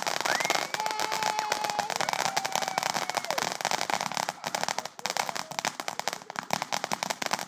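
Ground fountain firework spraying sparks: a dense, continuous crackle of many rapid small pops, briefly dipping about two-thirds of the way through.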